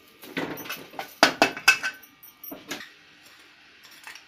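Wooden spoon stirring boiled chickpeas in an aluminium pot, scraping and knocking against the pot several times. The stirring stops a little under three seconds in, leaving a faint sizzle from the frying masala.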